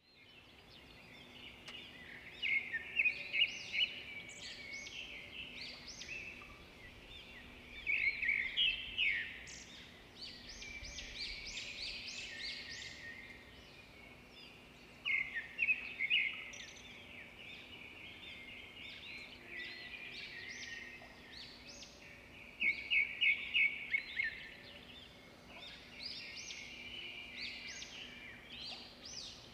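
Small birds chirping in repeated bursts of quick high notes, over a faint steady low hum.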